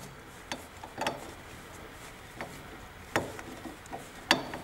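Metal clicks and taps as a Triumph Spitfire rear brake wheel cylinder is twisted off the end of its brake hose by hand. About half a dozen short, sharp clicks come at uneven intervals, with the strongest near the end.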